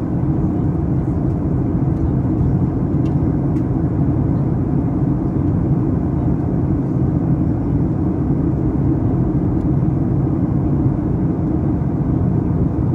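Steady cabin noise of a Boeing 737 MAX 8 in flight, heard from a window seat over the wing: its CFM LEAP-1B turbofan engines and the airflow past the fuselage make an even, low drone that does not change.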